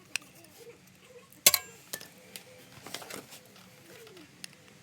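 Small metal parts and tools clinking and tapping by hand, with one sharp metallic click about a second and a half in and a few lighter ones after.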